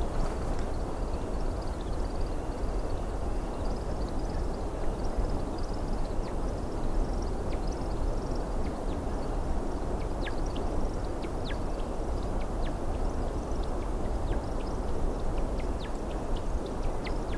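American woodcock in its display flight. First comes a thin, high twittering, then from about eight seconds in a run of quick, sharp chirps. A steady low rumble lies under it all.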